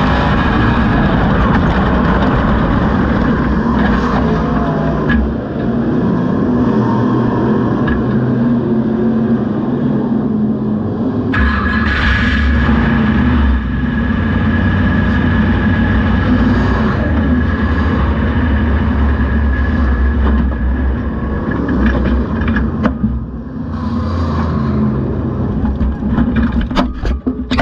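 A dirt-track race car's engine running loud and steady, heard through an onboard camera in the cockpit. About eleven seconds in it grows deeper and fuller.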